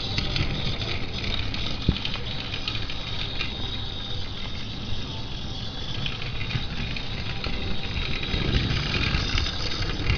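Tomy Plarail C12 toy steam locomotive running on blue plastic track: the steady rattling whir of its small battery motor and gearbox, with the wheels clattering over the track. A single sharp click about two seconds in.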